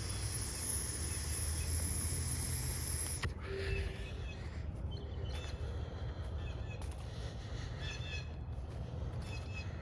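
A steady hiss of air drawn through a vape pen for about three seconds, cutting off suddenly. After it, birds chirp faintly now and then.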